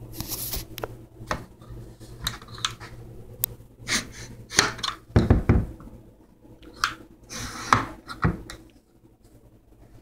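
Handling noises: a scatter of knocks and clicks mixed with rustling, with a heavier thump about five seconds in.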